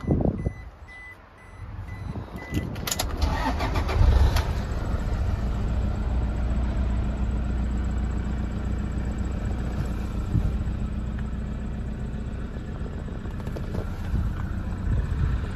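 After a thump at the start, a dashboard warning chime beeps repeatedly. Then the Toyota Hilux's 2.5 D-4D four-cylinder turbodiesel cranks briefly and starts about four seconds in, settling into a steady idle.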